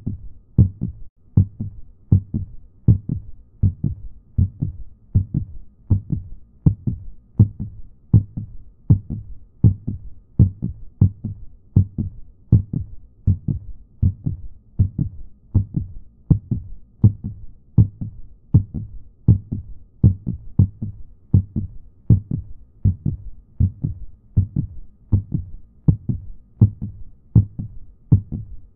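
Heartbeat sound: a steady, unbroken rhythm of low double beats (lub-dub), evenly spaced.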